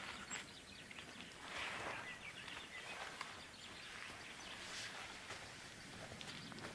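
Faint crunching of footsteps in snow: a few soft crunches spread out, with scattered small clicks between them.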